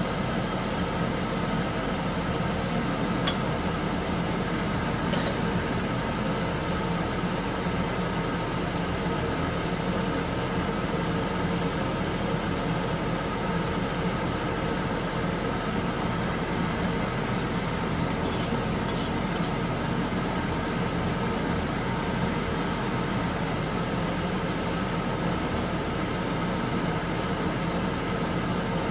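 Beef fat pieces simmering in water in a steaming wok, under a steady mechanical hum and rushing noise, with a few faint pops.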